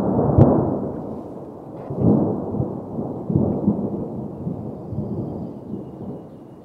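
Wind buffeting the microphone: a low, noisy rumble in gusts, strongest about half a second and two seconds in, then fading off.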